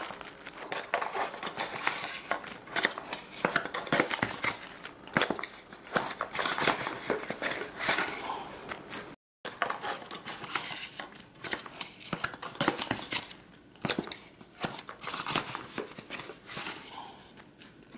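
Cardboard box being opened and tipped out by hand: irregular rustling and crinkling of paper and plastic wrapping, with many small taps and knocks of cardboard. The sound breaks off into a brief silence about halfway through.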